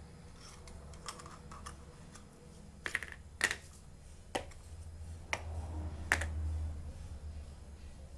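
Small metal parts (flat rings, a disc and cylindrical cups) being set down one at a time on cardboard: a string of irregularly spaced sharp clicks and clacks, the loudest around the middle.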